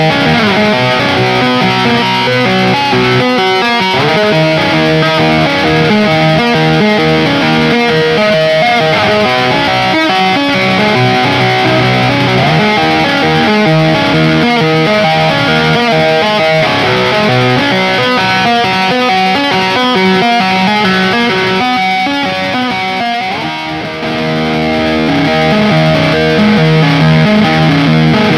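Ibanez GRGRS22FM electric guitar played through its stock Ibanez STD C1/C2 humbucker pickups, sustained notes and chords with a distorted amp tone. The playing dips briefly about three-quarters of the way through, then comes back.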